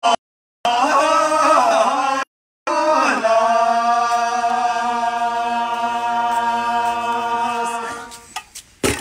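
A group of voices singing unaccompanied in a chant-like style: a short moving phrase, then one long held note that fades away near the end. The sound cuts out completely twice in the first few seconds, and a sharp click comes at the very end.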